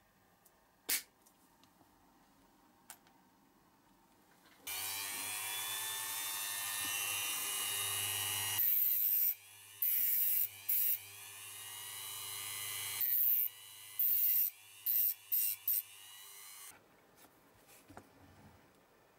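Pliers snip steel wire with a sharp click about a second in. Then a Dremel rotary tool with a cut-off disc runs at a steady high whine for about twelve seconds, with a series of short, louder bursts of grinding as the disc cuts into the steel wire, before it stops.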